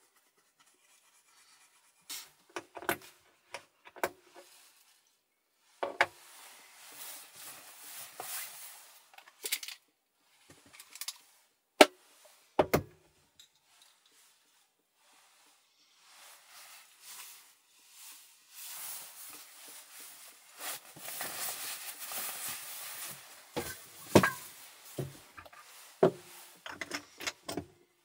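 Small items being handled at a wooden counter: scattered clicks and light knocks, the sharpest a little before the middle, then a stretch of rustling with more taps and knocks in the last third.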